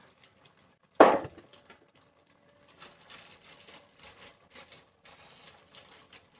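A wooden spatula knocks once, sharply, against a steel cooking pot about a second in, then faint scattered clicks and clinks of kitchen handling follow.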